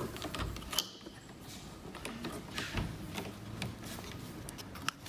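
Scattered small clicks and light knocks from a rubber electrical cord and its plastic plug being handled and pushed into a socket on the machine's panel.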